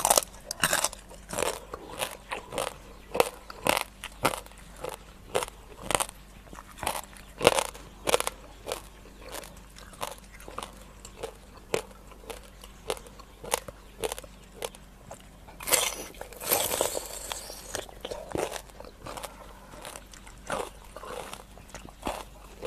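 Close-miked chewing of raw rice-field crab and fresh vegetables: sharp crunches about twice a second, with a longer, denser crunch about two-thirds of the way through.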